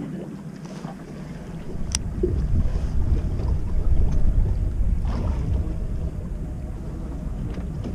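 Wind buffeting the microphone aboard a small fishing boat at sea, a low rumble that grows louder about a second and a half in, with one sharp click about two seconds in.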